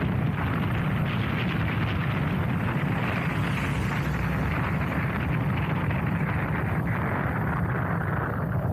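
Motorcycle riding at a steady speed: the engine drones evenly under wind rushing over the microphone.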